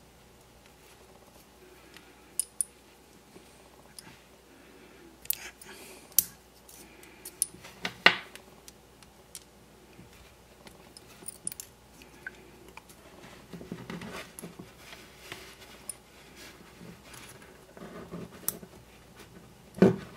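A small screwdriver and the plastic-and-metal parts of a Hornby APT-P power car bogie being handled and pried apart: scattered sharp clicks and taps at uneven intervals, the loudest about eight seconds in, with some soft rustling of parts in the fingers.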